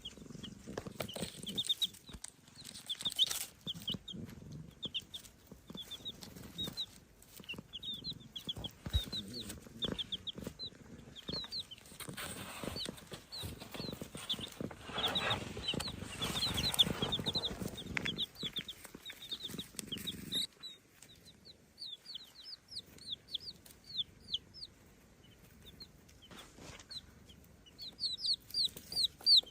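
Baby chicks peeping: a stream of short, high, rising chirps. For the middle part, a low rumbling noise sits under them and stops suddenly about twenty seconds in.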